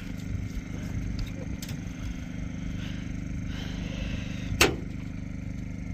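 A generator engine running with a steady hum. A single sharp click cuts through it about four and a half seconds in.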